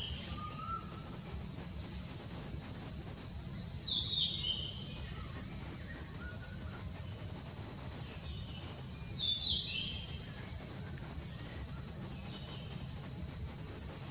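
Steady high-pitched insect drone of the forest, with a bird calling twice, each call a quick run of falling notes lasting about a second.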